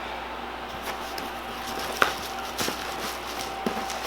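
Handling noise from opening a radio's packaging: a few scattered taps and knocks, the sharpest about two seconds in.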